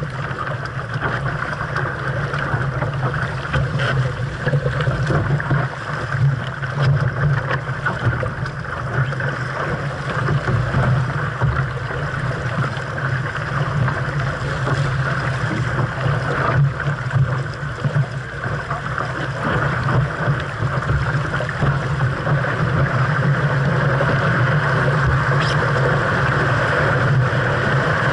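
Wind on the microphone and water rushing along the hull of a 470 sailing dinghy under way in a strong breeze. The sound is a steady rush that grows a little louder near the end.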